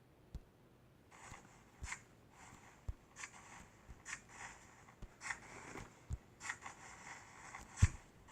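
Slime being squished and poked by hand, giving a string of short, irregular crackles and pops, with one louder pop near the end.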